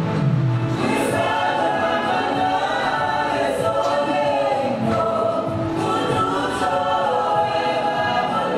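Gospel music: a choir singing in harmony, steady throughout.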